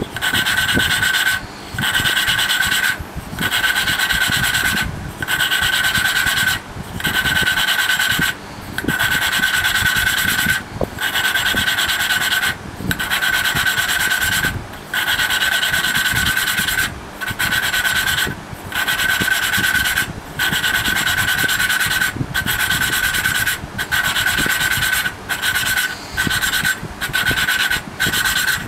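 A valve being hand-lapped into its seat in a small air-cooled engine's cylinder head: grinding compound rasping between valve face and seat as the lapping stick is twisted back and forth, in steady strokes with short pauses at each change of direction, coming a little faster near the end. The grinding is taking down the tiny pits in the valve and seat surfaces so they seal.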